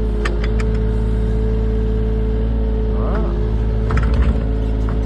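Excavator engine running steadily as the boom and bucket are worked, its note dipping briefly about three seconds in, with a few sharp clicks and knocks.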